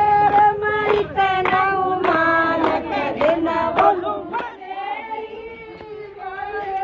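A group of women singing together, with steady rhythmic hand clapping for about the first four seconds. After that the clapping stops and the singing goes on more quietly.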